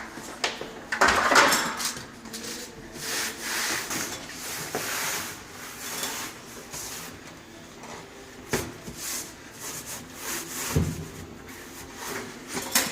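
Irregular rubbing, scraping and swishing of objects being handled, with a few sharp knocks, one loud one about nine seconds in.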